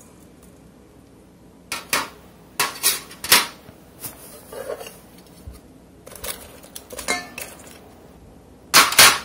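Metal tongs and a stainless steel mixing bowl clinking and knocking as chicken wings are tossed in seasoning: irregular clatters starting about two seconds in, loudest just before the end.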